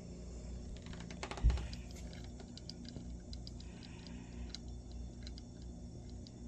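A kitten moving about on a carpeted cat tree: a soft thump about a second and a half in, then many light clicks and taps.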